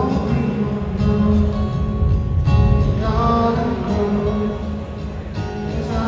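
Live rock band playing through a concert PA, heard from the audience: strummed acoustic guitar with electric guitar, bass and drums, and singing over it.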